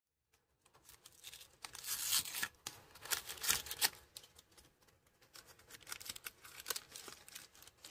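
Plastic and paper toy packaging torn open and crinkled by hand, in irregular rips and rustles, loudest about two to four seconds in.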